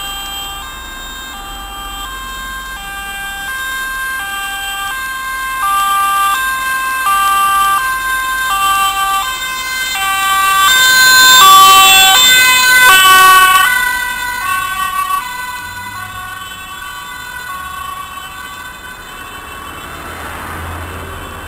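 Dutch ambulance's two-tone siren alternating evenly between a high and a low note, growing louder as the ambulance approaches on an urgent run. It is loudest about twelve seconds in as it passes, then fades as it drives away.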